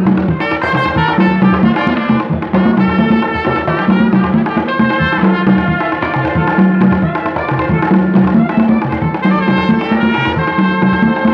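Haitian folk dance music: a trumpet playing a melody over hand drums beating a steady, driving rhythm.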